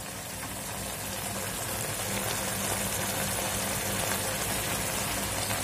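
Dry prawn gravy simmering in a kadhai, bubbling and sizzling with a steady hiss, over a steady low hum.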